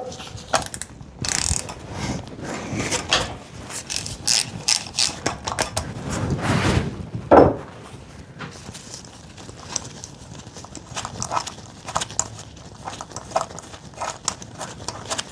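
Hand ratchet wrench clicking in repeated strokes while working on a Mazda Miata engine, with one louder metallic knock about seven seconds in.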